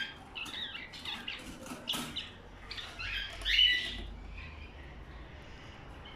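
Budgerigars chirping and squawking in short calls, loudest about three and a half seconds in, with light clicks and taps mixed in; it goes quieter over the last two seconds.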